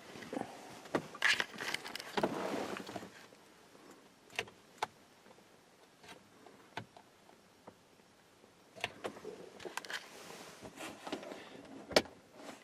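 Handling noises inside a vehicle cab: scattered sharp clicks and short rustling, busiest in the first three seconds and again near the end, with a quiet stretch in the middle.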